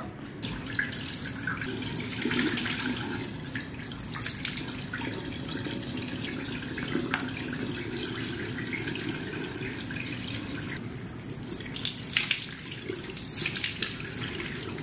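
Bathroom sink tap running steadily while water is scooped in cupped hands and splashed onto a face, the splashes and drips falling back into the basin. The splashing comes in a cluster a couple of seconds in and again near the end.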